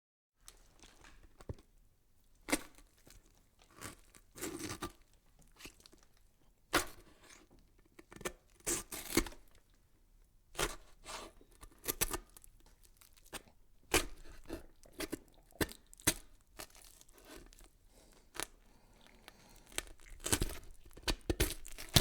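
Irregular series of sharp crackles and clicks, some coming in quick clusters, with a faint background between them.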